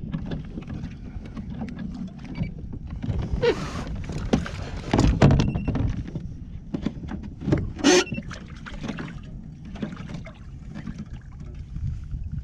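Handling noise in a plastic sit-on-top kayak while a fish is reeled in: rustling, knocks and scrapes against the hull over a steady low rumble, with sharper bumps about five and eight seconds in.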